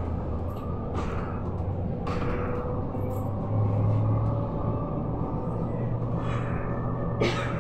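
Ride noise inside a moving Volgabus-5270.E0 electric bus: a steady low rumble with a faint steady hum, broken by a few short knocks and rattles, the sharpest one near the end.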